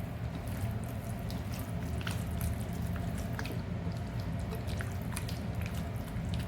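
Raw chicken pieces being mixed into a thick yogurt and ground-spice marinade: scattered soft wet squelches and small clicks over a steady low hum.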